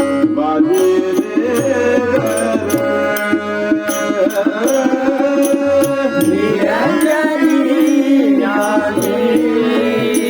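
Music of a Marathi abhang (devotional song): held melodic notes over a steady beat of regular percussion strokes.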